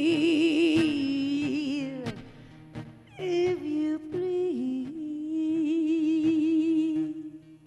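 A woman singing long held notes with a wide vibrato over an acoustic guitar. One note fades about two seconds in, then a second held phrase rises and fades out near the end.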